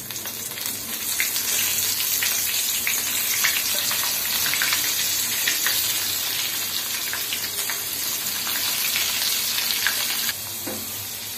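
Flour-coated sweet corn kernels frying in hot oil in a pan on a medium flame: a steady sizzle full of small crackles and pops. It builds over the first second or so and drops somewhat about ten seconds in.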